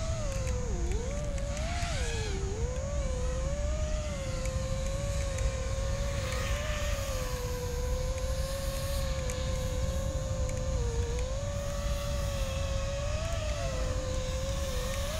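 iFlight Nazgul5 HD 5-inch FPV quadcopter's brushless motors and propellers whining steadily in flight, heard from the onboard camera. The pitch dips and swoops briefly with throttle changes about one and two seconds in, over a steady low rumble.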